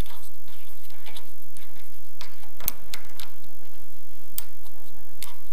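A drill chuck turned by hand, its sleeve and jaws giving scattered sharp metallic clicks and small ticks as a steel spring center is fitted into it; the clearest clicks come a little past halfway and near the end.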